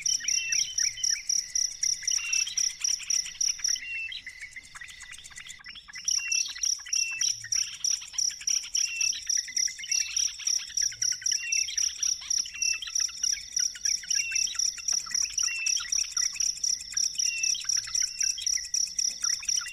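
A high, rapidly pulsing insect trill with short bird chirps repeating about once a second beneath it. The trill drops out for a moment about four seconds in and returns about two seconds later.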